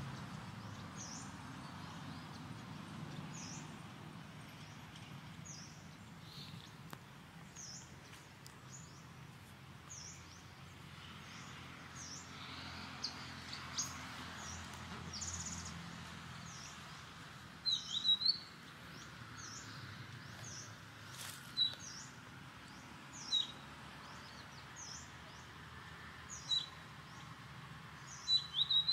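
A small bird calling over and over in forest, a short high falling chirp about once a second, with a few louder, sharper chirps in the second half.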